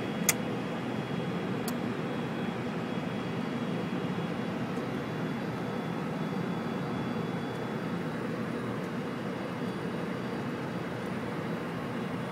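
Steady flight-deck noise of a Boeing 747-400F on final approach with gear down and flaps 30: an even rush of airflow with engine noise underneath. A single sharp click comes just after the start.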